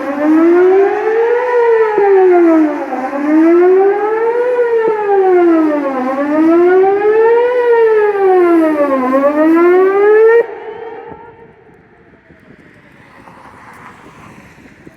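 Whelen WPS-4008 electronic outdoor warning siren sounding a wail, its tone rising and falling about every three seconds. It cuts off abruptly about ten seconds in.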